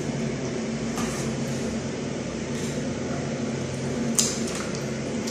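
Steady low mechanical hum in a small room, with a few faint clicks and one sharp click about four seconds in.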